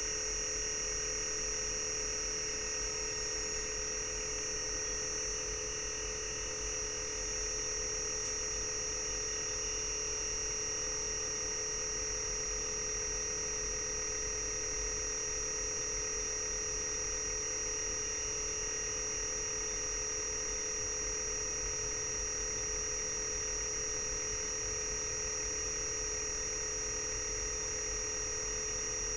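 Air-conditioner inverter compressor driven by a Daikin inverter PCB under test on the bench, giving a steady high-pitched electrical whine of several held pitches that does not change.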